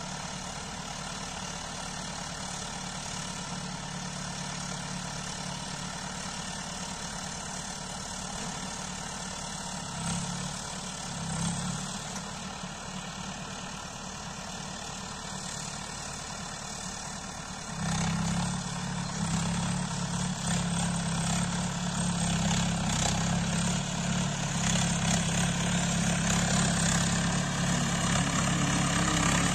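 Mahindra Yuvo 585 tractor's diesel engine running steadily under load as it pulls a cultivator through hard, dry soil in four-wheel drive. It grows clearly louder from about two-thirds of the way through as the tractor draws near.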